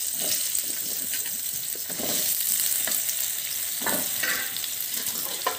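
Hot mustard oil sizzling steadily in a kadai as potato wedges are dropped into it, with a few knocks as pieces go in.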